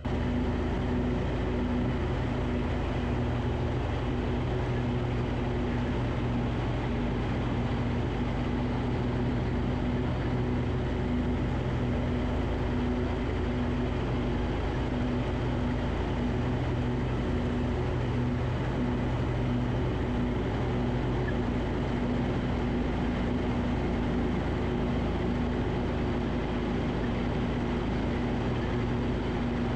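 Riding lawn tractor's gas engine running at a steady speed while mowing, a constant hum over an even rush of noise.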